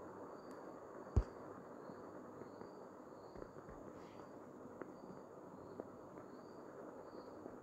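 Quiet background hiss with a faint cricket chirping at an even pace, and one sharp click about a second in.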